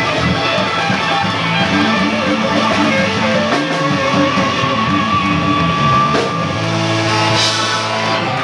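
Live rock band playing loud, with electric guitars, bass guitar and saxophone; from about six and a half seconds in the band holds sustained notes.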